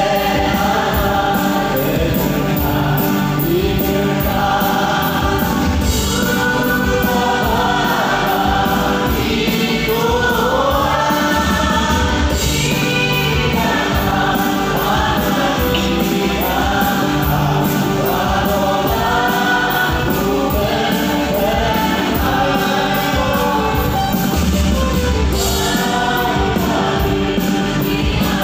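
Church choir singing a hymn in parts, with held low accompanying notes beneath the voices, carried over an outdoor public-address system.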